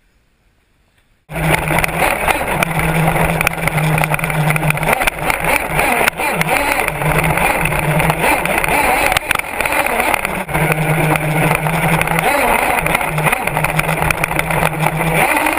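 Onboard sound from an HPI Savage RC truck driving over rough ground: loud, constant rattling and rumbling of the chassis, with a low steady drive note that comes and goes with the throttle. It starts suddenly about a second in, after near silence.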